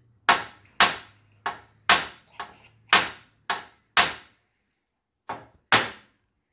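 Hammer blows on metal at an 1800s cast iron coffin: about ten sharp strikes, roughly two a second, each ringing briefly, with a short pause about four seconds in.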